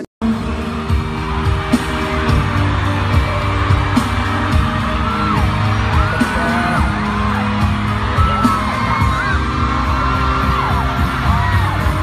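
Loud live pop music at an arena concert, with the audience screaming and whooping over it.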